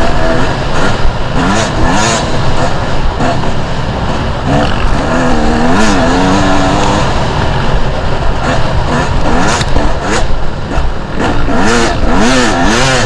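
Two-stroke enduro dirt bike ridden off-road, the engine revving up and down again and again as the throttle is worked, over a steady low rumble with a few sharp knocks.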